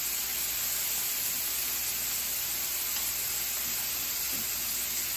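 Beef steak strips sizzling on a flat griddle set to 325, a steady frying hiss.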